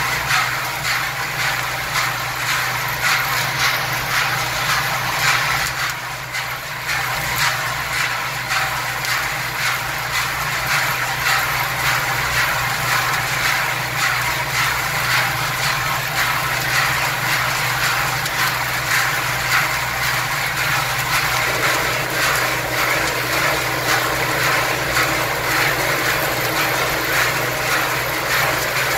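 Rotating steel drum of a guided nut-roasting machine turning, with a steady dense rattle of nuts tumbling off the internal guide vanes over a low hum from the drive.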